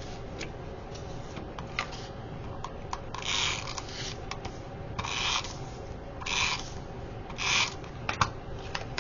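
Four short rubbing strokes on a paper square, with small clicks and taps of paper being handled between them.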